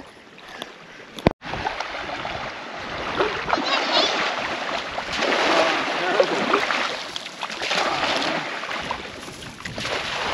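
Shallow sea water splashing and swishing as a cast net is thrown from the shallows and lands on the surface, more than once.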